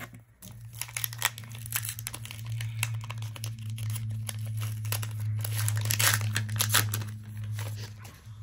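Foil wrapper of a Pokémon card booster pack being torn open and crinkled by hand, a dense run of crackling that is loudest in the middle. A steady low hum runs underneath.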